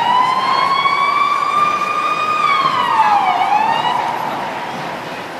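Emergency-vehicle siren wailing. The pitch rises slowly, falls about three seconds in, rises again and fades near the end.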